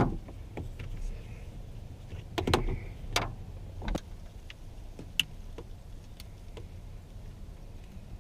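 A handful of sharp clicks and knocks from parts being handled at a pickup's steering column, over a steady low hum.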